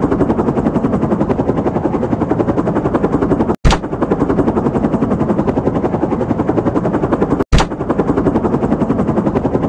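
Battery-operated toy helicopter's electronic sound effect: a rapid, even rattling pulse like rotor chop or machine-gun fire, breaking off for an instant twice.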